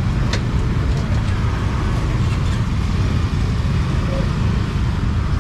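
Busy street ambience with a steady low rumble of motorbike and car traffic, and faint voices and a few light clinks over it.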